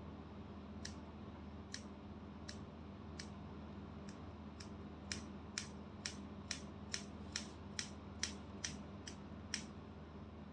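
Hairdressing scissors snipping hair, about seventeen sharp snips: a few spaced slowly at first, then quicker at about two a second from halfway through.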